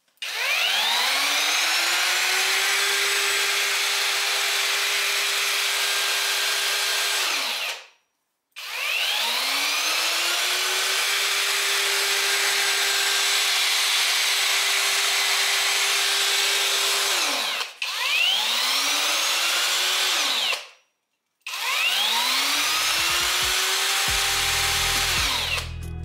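Parkside PFMRA 20-Li A1 cordless paddle mixer's motor switched on and off four times: each time it spins up with a rising whine, holds a steady pitch for a few seconds, then winds down. Background music comes in near the end.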